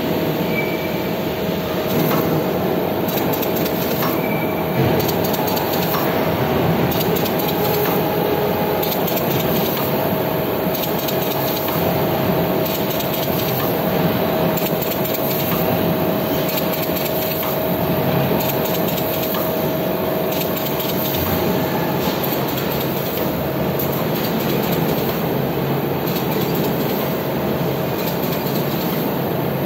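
Paper window patching machine running steadily, its rollers and cutting cylinder feeding paper blanks and pasting film windows, giving a continuous mechanical clatter. A steady tone runs through it and drops out about two-thirds of the way through.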